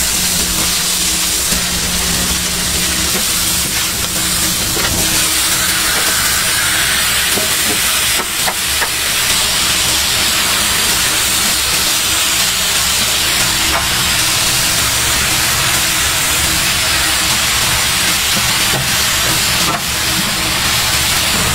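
Red-marinated meat and chopped cabbage frying on a hot flat-top griddle: a loud, steady sizzle, with a metal spatula scraping and turning the food a few times.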